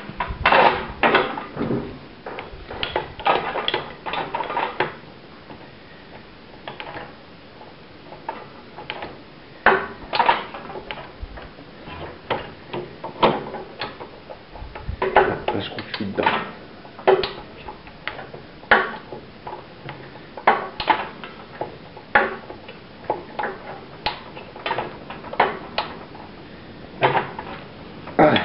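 Hand tools and metal engine parts of a Citroën Dyane clinking and knocking at irregular intervals while they are handled and fitted.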